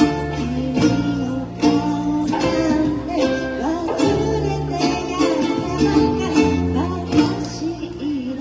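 A live ukulele ensemble playing a slow song: strummed ukuleles and guitar over a bass line that changes note about once a second, with a lead vocal melody on top.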